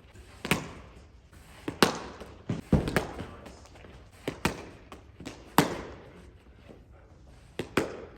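Cricket balls smacking into wicketkeeping gloves in a catching drill: a series of sharp slaps, several in quick pairs a fraction of a second apart.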